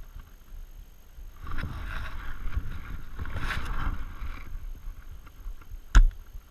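Rustling and scuffing of a player moving through brush for about three seconds, then a single sharp crack of an airsoft rifle shot near the end, the loudest sound.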